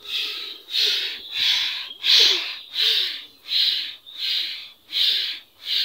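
Homemade plastic-disc string spinner (whirligig) whirring as its twisted string is pulled and relaxed. It makes about eight pulses of a high whir, roughly one and a half a second, each swelling and fading as the disc speeds up and slows.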